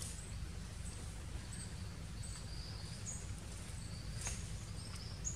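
Outdoor forest ambience: a steady low rumble with short, high-pitched chirps repeating every half second to a second, and a faint click about four seconds in.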